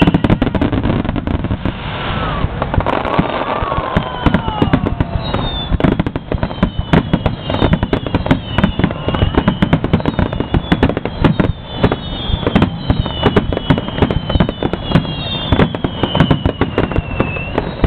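Aerial fireworks finale barrage: a dense run of overlapping bangs and crackles. From about five seconds in, several whistling shells fall in pitch over the bursts.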